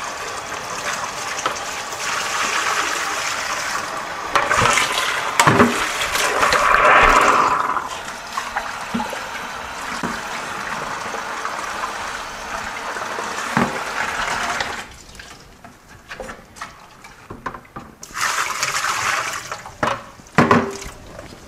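Water running from a garden hose into a stainless steel sink and a plastic bucket as the bucket is rinsed, with a few knocks of the bucket against the sink. The flow stops about two-thirds of the way through; near the end there is another short rush of water and a knock.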